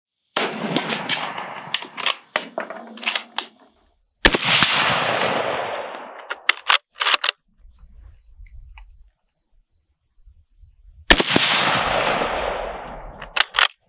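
Two shots from a Mosin-Nagant M91/30 sniper rifle (7.62×54R) about seven seconds apart. Each crack echoes away over about two seconds, and quick metallic clicks of the bolt being worked follow it. Before the first shot there is a cluster of clicks and rattles.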